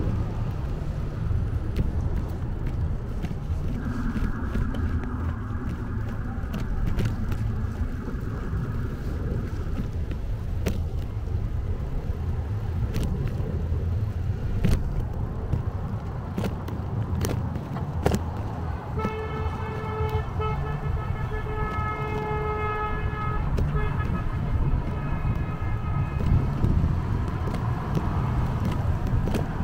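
A vehicle horn honking, held for about four seconds and then again for a couple more, over a steady low rumble of vehicle or traffic noise. A single steady higher tone sounds for several seconds earlier on.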